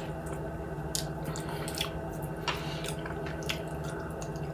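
Close-up chewing of fried chicken: a few sharp wet smacks and crackles at irregular moments over a low steady hum.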